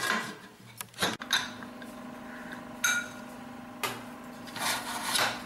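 Pressure cooker lid being fitted and locked onto the pot: a few short metal clinks and knocks with some scraping. A steady low hum sets in about a second in.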